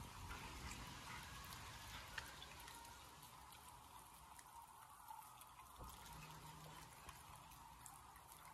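Faint, wet licking and chewing of a slab of raw beef by a dog, with scattered small clicks.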